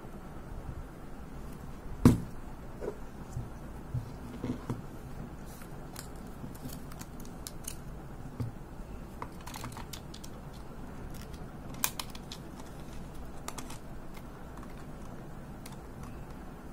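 Handling noise from loading a 35 mm film cartridge into the Olympus AZ-230 Superzoom's open plastic body: scattered small clicks and rustles of the cartridge and film leader, with a sharp knock about two seconds in and another sharp click near twelve seconds.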